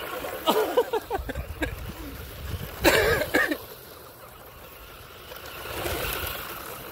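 RC monster truck driving and skidding through beach sand, its tyres churning sand. Voices exclaim near the start, loudest about three seconds in, over a steady wind rumble on the microphone.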